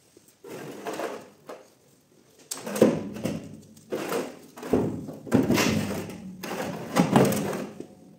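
Heavy Audi multitronic CVT gearbox casing being shifted and turned by hand on top of a metal drum: about half a dozen short scraping slides and knocks of the casing against the drum lid, each under a second.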